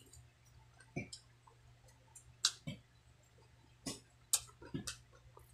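A person eating with her hands, close to the microphone: scattered sharp mouth clicks and smacks while chewing, with fingers picking at food on a plate, about seven clicks in all, over a faint steady low hum.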